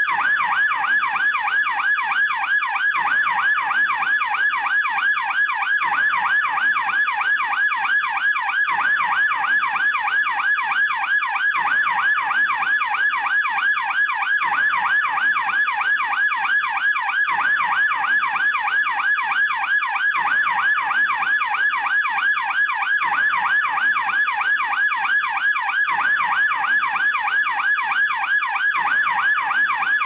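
Swiss police car's electronic yelp siren, its pitch sweeping rapidly up and down several times a second in an unbroken, steady cycle.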